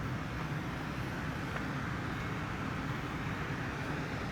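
Steady road traffic noise: the hum of cars on a nearby road.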